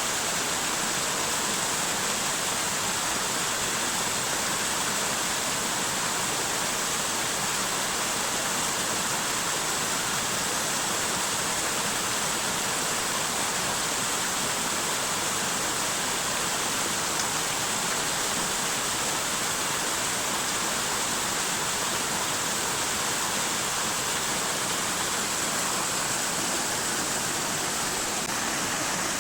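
Forest waterfall: a steady, unbroken rush of falling water.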